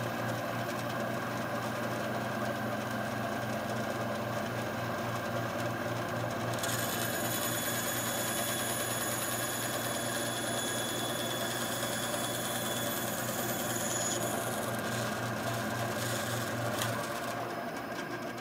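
Ryobi 9-inch benchtop band saw running with a steady electric-motor hum while its blade cuts through plywood. A thin high whine joins in for several seconds in the middle.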